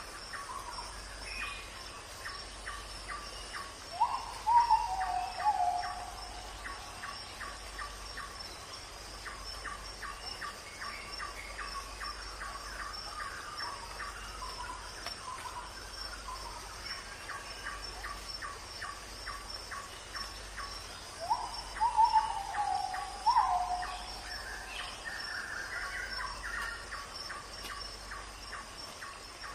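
Birds calling over a steady, high insect drone and a fast, even ticking of about three or four beats a second. The loudest sounds are two short runs of falling calls, about four seconds in and again about twenty-one seconds in.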